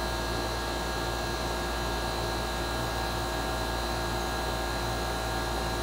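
York central air conditioner condenser running steadily, its outdoor fan and compressor making an even whooshing hum. The unit is freshly recharged after a microchannel condenser coil replacement and is running in while its charge settles.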